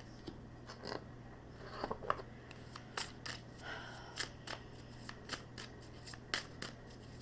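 Tarot cards being handled and shuffled: a run of quick, sharp card clicks and snaps, sparse at first and then about three a second from about three seconds in.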